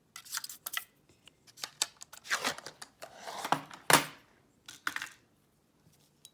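Small metal clicks and scrapes of a padlock core and lockpicking tools being handled, in a few short irregular bursts, the loudest a sharp click about four seconds in.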